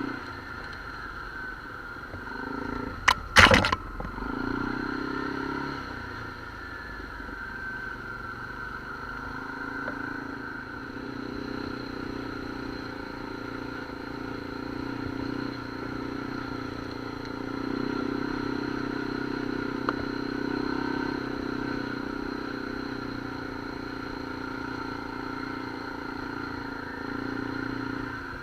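Off-road vehicle engine running while riding a trail, its note swelling and easing with the throttle. A quick cluster of sharp knocks, the loudest sound, comes about three seconds in.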